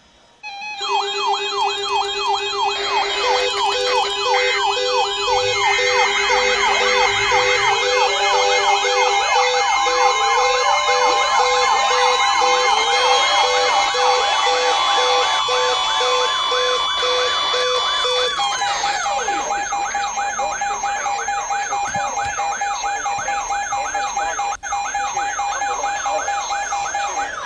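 Several NOAA weather radio alarms going off at once: electronic siren sweeps layered with steady alert tones and a pulsing beep, starting abruptly about half a second in. Some of the tones drop out about two-thirds of the way through while the sweeping siren carries on. It is the radios' alert for an incoming weather warning.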